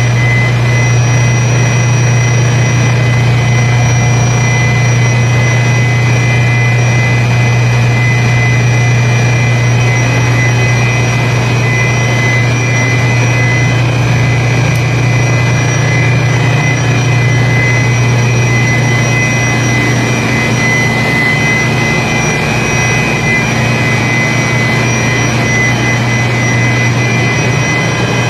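Running centrifugal chiller plant machinery: a loud, steady low hum with steady high-pitched whining tones over a hiss.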